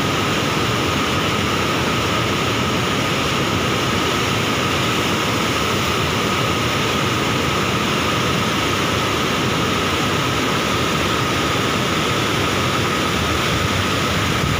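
Roar of floodwater released through a dam's open spillway gates, churning white over boulders below the dam. It is a loud, steady rush with no breaks.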